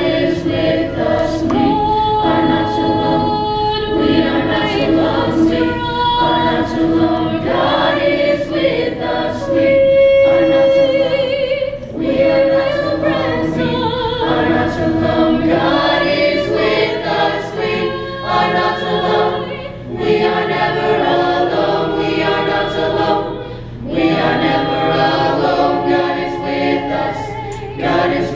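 High school choir singing in harmony, with voices holding long notes.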